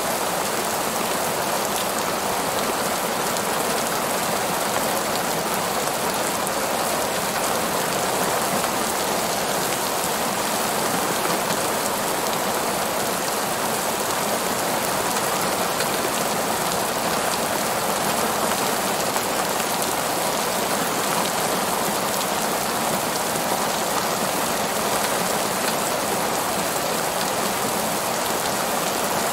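Heavy rain falling steadily on a parking lot, an even, unbroken wash of sound with no single drops or thunder standing out.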